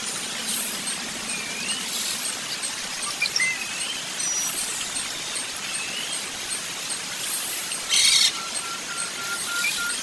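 Several birds chirping over a steady outdoor hiss: short wavering whistled notes, a fast run of very high-pitched ticks, and a loud harsh chirp about eight seconds in, followed by a string of evenly spaced lower pips.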